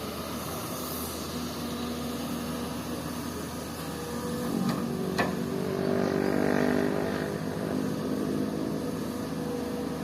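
Komatsu PC200 excavator's diesel engine running steadily. It works harder and louder for a couple of seconds from about halfway, just after a single sharp knock.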